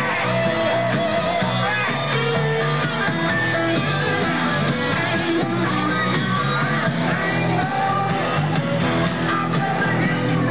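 Rock song with guitar and singing, playing steadily for dancers.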